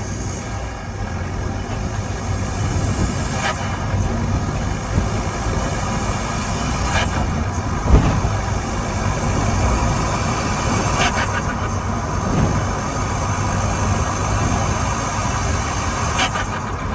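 Skoda Octavia vRS 2.0 TDI under way, its engine and road noise running steadily, broken by several short bursts of turbo flutter from compressor surge as the throttle is lifted. The turbo breathes through an open pod filter under the bonnet. The sharpest burst comes about eight seconds in.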